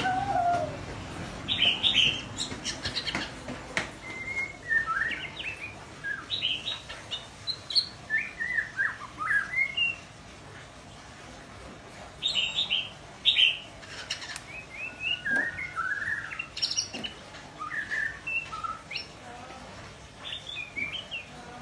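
Young white-rumped shama practising its song: short, broken phrases of chirps and whistles, with a pause of about two seconds halfway through.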